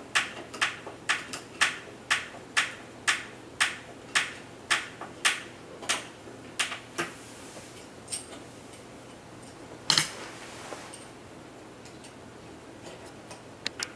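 Screwdriver turning a screw into a caster wheel's mounting plate: a steady run of sharp clicks, about two a second, that stops about halfway through, then one louder knock about ten seconds in.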